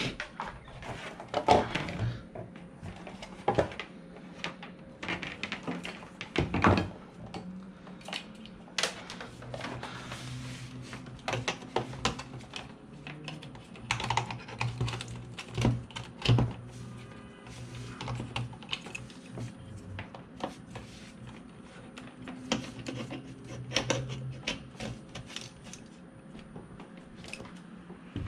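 Irregular sharp clicks and taps, like typing on a keyboard or small objects being handled, some louder knocks among them, over a low intermittent hum.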